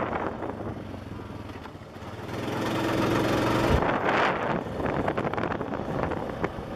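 Wind buffeting the microphone of a moving ATV, rising and falling in gusts, with the ATV's engine running underneath. The engine's steady hum comes through plainly for a moment about two to four seconds in, when the wind eases.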